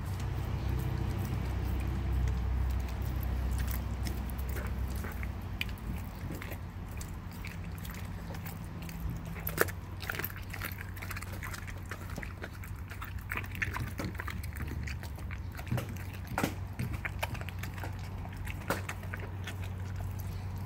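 German Shepherd chewing and gnawing a raw chicken leg quarter, with wet crunches and sharp cracks at irregular moments, the loudest about halfway through. A steady low hum runs underneath.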